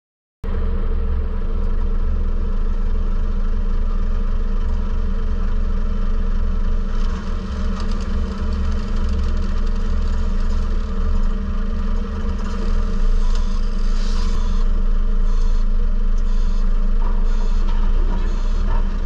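Diesel engine of a Merlo telehandler running with a steady low rumble as it lifts panel packs off the trailer, with a run of short hissing pulses in the last few seconds.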